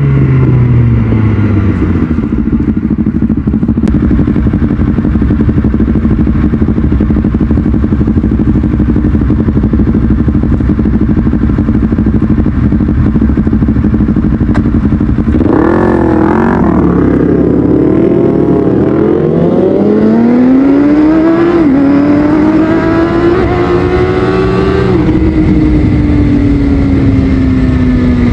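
Kawasaki ZX6R inline-four through a Yoshimura exhaust, running under way: it holds a steady pitch for a long stretch, wavers, then revs up in two pulls with a gear change between them, and sinks slowly as the throttle comes off.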